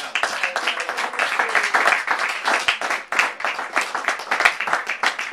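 Small audience clapping, with many separate hand claps standing out.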